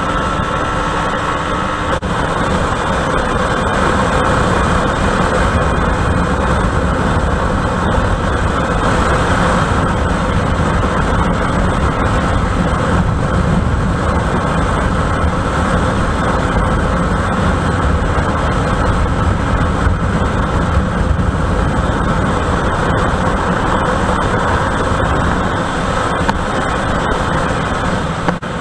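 A Honda SP125's single-cylinder engine running hard at about 100 km/h, mixed with a steady rush of wind on the camera microphone.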